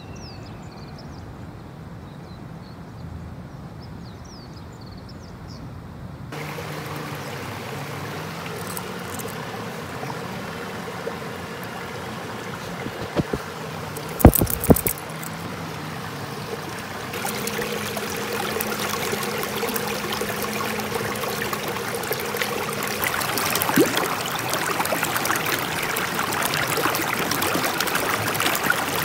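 Shallow creek water rushing and splashing between concrete stepping blocks, starting suddenly about six seconds in and growing louder about two-thirds of the way through. The start is quieter, with a few faint chirps, and a few sharp knocks come near the middle.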